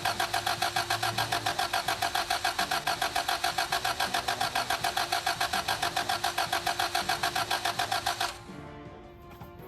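2003 Toyota Camry's engine cranking on the starter without catching: a fast, even rhythm of about seven pulses a second that stops suddenly about eight seconds in. The engine turns over but won't start.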